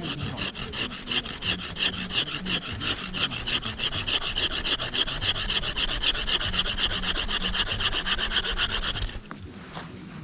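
Bahco Laplander folding saw cutting through dead wood with quick, even back-and-forth strokes that stop about nine seconds in.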